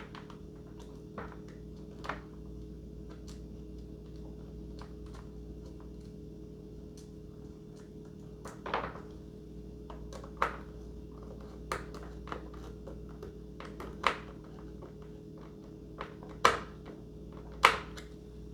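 Irregular clicks and knocks of parts and tools being handled while a radio-control model plane is assembled, about a dozen short taps, the loudest ones near the end.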